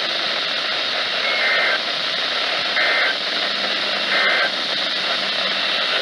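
NOAA Weather Radio received on a Midland handheld weather radio's speaker: three short bursts of warbling SAME data tones, about a second and a half apart, over steady static hiss. These are the coded header that opens a Required Weekly Test.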